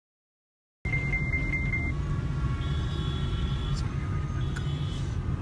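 Steady low rumble of a car driving, heard from inside the cabin, cutting in abruptly after a second of dead silence. A short, high, steady beep sounds just after it starts, and fainter high tones come and go later.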